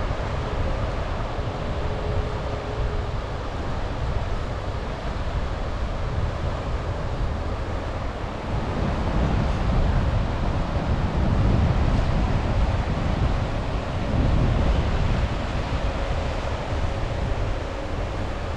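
Sea waves washing onto the shore, with wind buffeting the microphone in a low rumble that swells louder in the middle.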